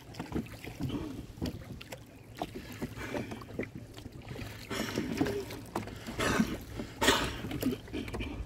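Rowboat under way: oars dipping and pulling through the water, with a few splashing strokes in the second half, the loudest about seven seconds in. Under them is a steady low rumble of wind on a lavalier microphone with no windscreen.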